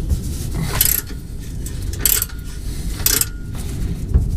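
Ratchet wrench clicking in short runs, three times about a second apart, as it turns the 15 mm nuts off an exhaust pipe clamp.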